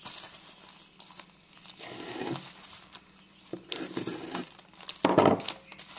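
Plastic mailer bag being slit with a pocketknife and crinkling in the hands, in several short bursts, the loudest about five seconds in.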